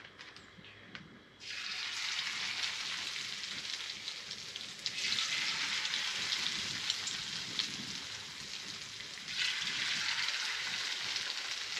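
Beer-battered crappie fillets sizzling in a hot frying pan. The sizzle starts suddenly about a second and a half in and swells twice more as further fillets are laid in the pan.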